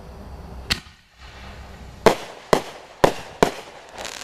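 Consumer fireworks going off: one sharp bang about a second in, then four more sharp bangs in quick succession, with a patter of small crackles near the end.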